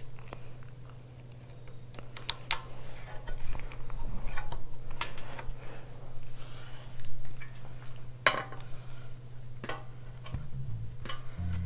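Scattered clicks, clinks and knocks of hand tools on small metal engine parts during reassembly, over a steady low hum.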